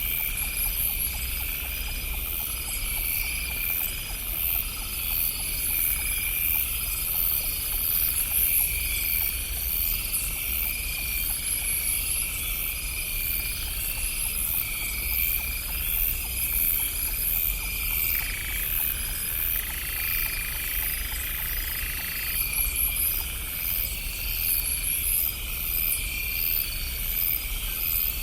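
Night chorus of frogs and insects, with rhythmic chirping and trilling that repeats evenly throughout, over a steady low rumble. A faint steady tone joins for about four seconds past the middle.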